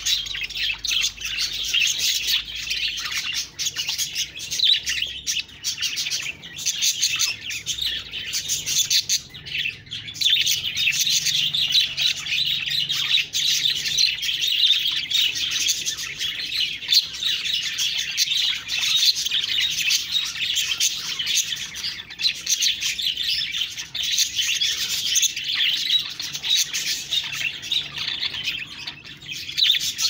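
A group of budgerigars (budgies) chirping and chattering without pause, many short overlapping chirps and warbles.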